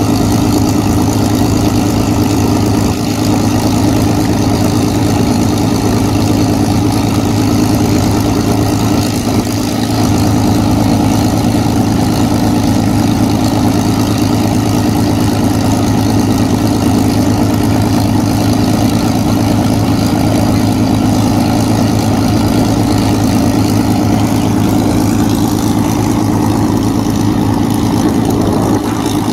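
Supermarine Spitfire's V12 piston engine idling steadily on the ground.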